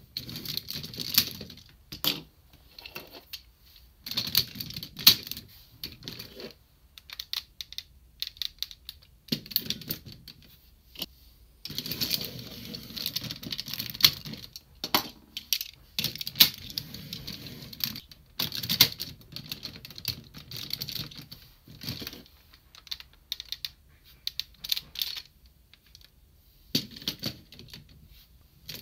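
Hard plastic parts of a DX Cho ToQ-Oh combining-robot toy being handled, pulled off and snapped on: irregular clicks and clatter with bursts of rustling handling noise and short pauses between.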